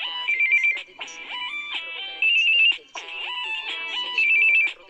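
A Samsung Galaxy Tab 2 stock ringtone playing: an electronic melody of stepping notes, with a quick, high two-note trill as the loudest part. The phrase repeats about every two seconds.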